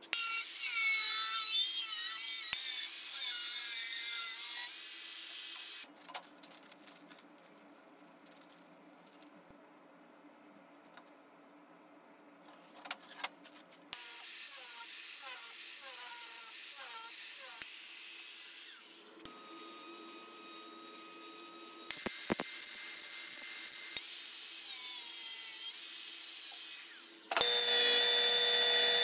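Angle grinder with a cutoff wheel cutting sheet steel and stainless pipe in several loud runs, with a quieter gap of handling clicks between them. Near the end a bench band saw cuts through a short pipe ring with a steady whine.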